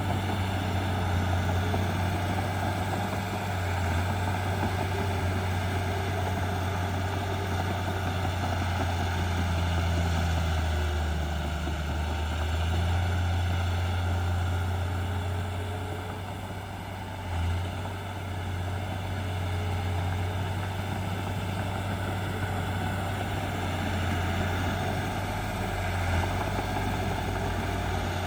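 Heavy diesel engine of earthmoving machinery running with a deep, steady drone. The engine note sags for a moment about two-thirds of the way through, then briefly picks up.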